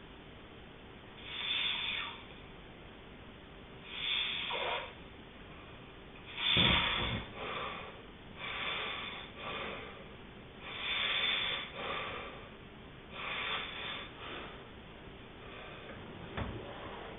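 A sleeping person snoring: a breathy rasp on each breath, repeating about every two seconds, with one louder, deeper snort about six and a half seconds in.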